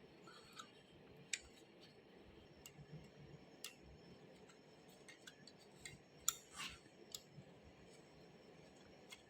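Faint, scattered clicks and light taps, about half a dozen at uneven intervals. The loudest comes about six seconds in, followed by a brief scrape, as of small metal parts and tools being handled.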